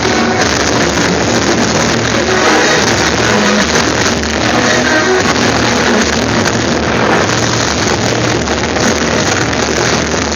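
Loud, distorted music over a steady low drone.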